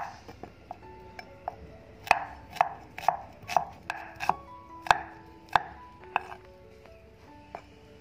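Steel cleaver chopping a red onion on a wooden cutting board: one sharp knock at the start, then a quick run of about a dozen chops from about two seconds in, thinning out to a couple of single strokes near the end. Faint music underneath.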